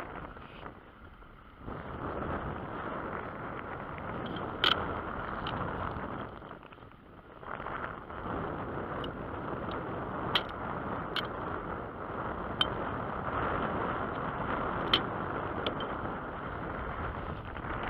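Steady rushing wind and water noise at a small boat's bow, dropping away twice, broken by about six sharp clicks and knocks.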